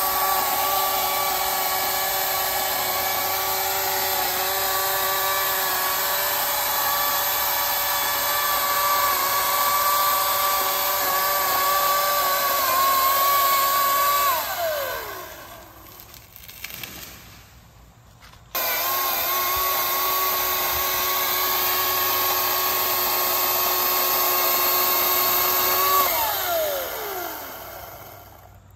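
RYOBI 40V HP brushless cordless chainsaw's electric motor running steadily with a high whine, its chain cutting through a tree trunk, then spinning down with a falling pitch about fourteen seconds in. About four seconds later it starts again abruptly, runs steadily, and spins down again near the end.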